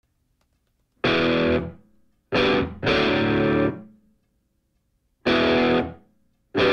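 Background music: distorted electric guitar chords, played as about five short separate hits with dead silences between them, the first about a second in.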